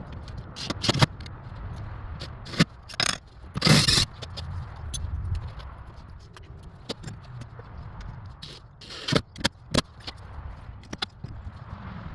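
Tools and plumbing parts being handled: a scatter of sharp knocks and clicks, a longer scrape about four seconds in, and three quick knocks around nine seconds in.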